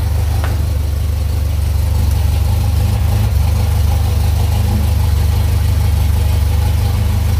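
An engine idling steadily: a loud, even low hum that does not change.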